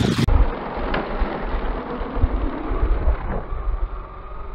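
Electric RC car in mid-jump, heard slowed down: a low, dull motor-like rumble with faint knocks, its high end cut off.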